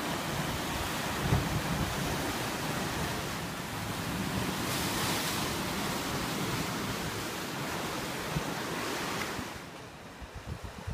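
Ocean surf surging and breaking on a rocky shoreline, a steady wash of white water with a louder surge about five seconds in, and wind gusting on the microphone. The sound falls away sharply near the end.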